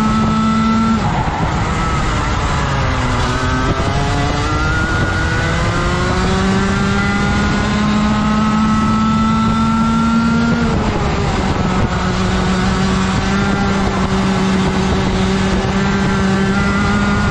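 Rotax Max 125cc two-stroke kart engine at full racing speed. The revs fall sharply about a second in, climb steadily for several seconds, drop again just past halfway, then hold high.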